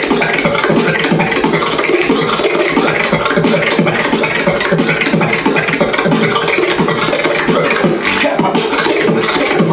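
Solo beatboxing: a fast, unbroken run of vocal drum sounds made with the mouth, over a steady held tone.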